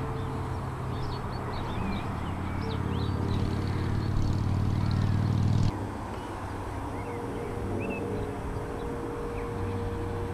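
Small birds chirping and singing over a low, steady mechanical hum. The hum grows louder and cuts off suddenly a little over halfway through, then carries on more faintly under the birdsong.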